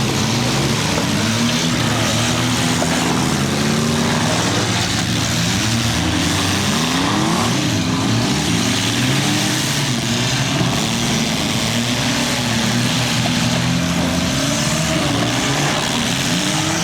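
Engines of several small demolition derby cars running hard together, revving up and down over one another in a steady wall of engine noise.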